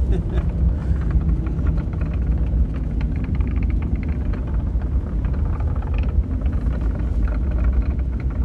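Airliner cabin noise during the landing rollout: a steady low rumble of the jet rolling on the runway, with faint rattles through the cabin.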